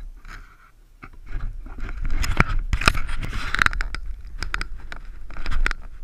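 Close handling noise on a foam RC airplane that carries the microphone: scraping, knocking and clicking as it is moved and lifted off the snow, with no motor running. Near the end, footsteps crunch in snow as it is carried.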